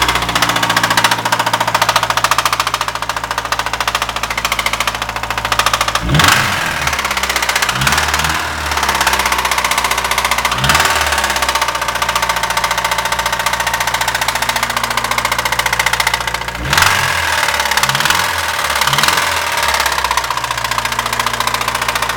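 Honda B18 four-cylinder engine in a 1990 Acura Integra idling and revved in short blips several times, with a weird noise running through it that the owner can't place and wonders may be the pistons, valves or rings.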